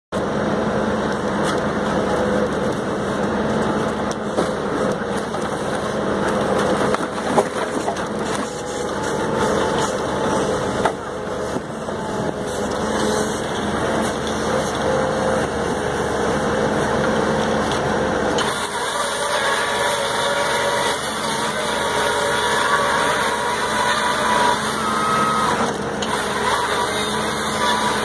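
Diesel engine of a truck-mounted forestry crane running steadily to drive its hydraulics as the grapple handles logs. Its sound changes abruptly about 18 seconds in, with wavering whining tones added after that.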